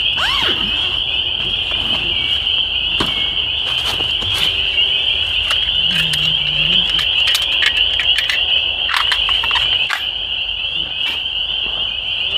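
Dense chorus of frogs calling from the pond: a steady, high-pitched wall of calls without a break. Over it come scattered sharp clicks and rattles as a folding bow saw is handled and folded shut.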